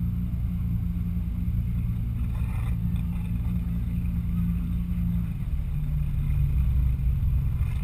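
Motorboat engine running steadily with the boat under way, a continuous low hum whose pitch drops a little about two-thirds of the way through.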